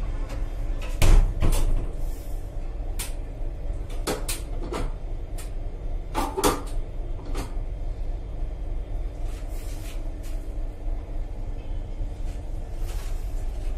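Steady low rumble of a moving Indian Railways Duronto Express coach, heard from inside the coach washroom, with irregular sharp knocks and rattles, the loudest pair about a second in and more scattered through the first half.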